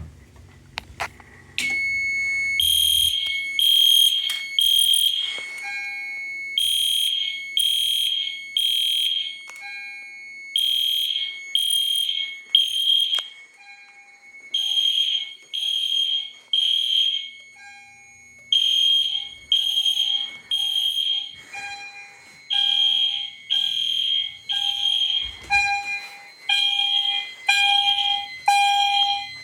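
EST Genesis fire alarm horns sounding in alarm in the temporal-three code: three blasts about a second apart, then a pause, repeating, after a smoke detector's test button has been pushed. A steady high tone runs underneath, and a softer lower beeping grows louder near the end.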